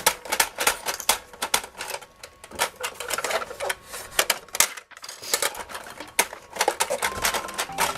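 Toy vending machine being worked by hand: a quick, irregular run of small plastic clicks and rattles from its coin slot, buttons and dispensing mechanism, broken by a short pause about halfway through.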